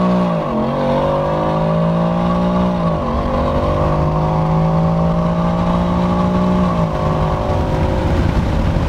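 2020 Ford F-150's 5.0L V8 pulling hard through the gears through a Magnaflow exhaust with high-flow pipes on an E85 tune, heard from inside the cab: the engine note climbs, drops at upshifts about half a second and three seconds in, climbs again, then eases off about seven seconds in, leaving road and wind noise.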